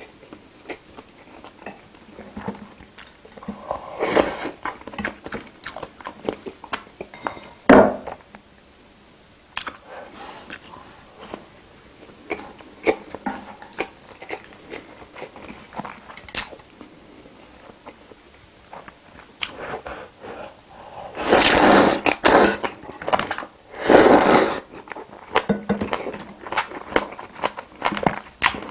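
Close-miked eating: a person chewing and biting into spicy braised seafood, with wet mouth clicks and smacks and some crunching. Two louder bursts of noise come about three-quarters of the way through.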